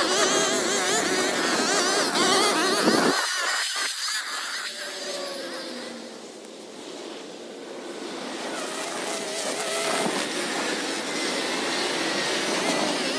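Small gas engine of lawn equipment running hard with a wavering pitch. About three seconds in, the low end drops away and the sound falls and quietens, then it builds back up to full speed from around ten seconds.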